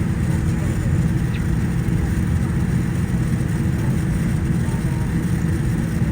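Steady low rumble of jet airliner engines during taxi, with a few faint steady tones above the rumble.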